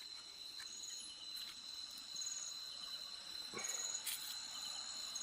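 Night crickets chirping: a steady high-pitched drone with short trilled chirps about once a second, faint.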